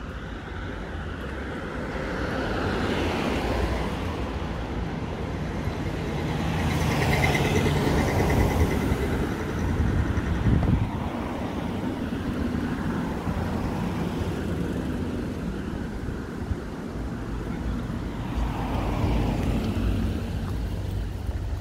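Road traffic: cars passing one after another along a street. The loudest passes come about three, eight and nineteen seconds in.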